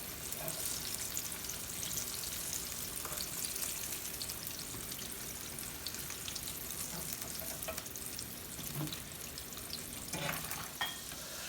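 Buttermilk-and-flour-coated green tomato cubes frying in hot oil in a cast iron skillet: a steady sizzle with fine crackles throughout.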